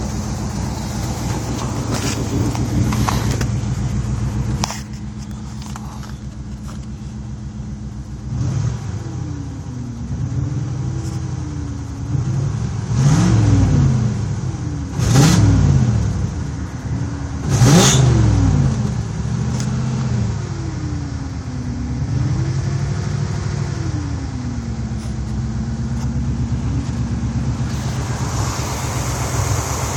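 1986 Chevy Caprice's carbureted engine idling, then blipped up and down several times from about eight seconds in, with the loudest revs around the middle, before settling back to idle. It has the rough idle and bogging that the owner has not cured with a new carburetor, ignition parts, fuel pump and EGR and PCV valves.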